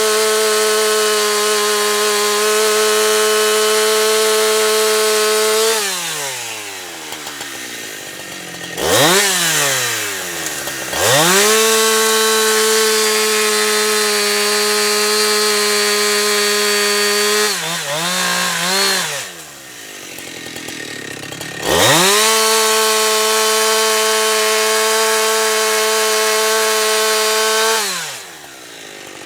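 Husqvarna 365 two-stroke chainsaw held at full throttle through three long cuts of firewood logs. Between the cuts the engine drops back to idle, with a quick rev-up in the gap.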